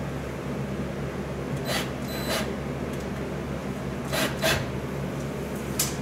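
Brief scraping rasps, mostly in pairs, from a screw being worked by hand through a plastic mounting plate into the wall, over a steady low hum.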